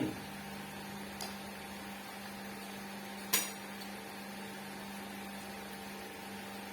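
Utensils clinking on dishes at a meal: a faint click about a second in and one sharp clink a little past three seconds in, over a steady low electrical hum.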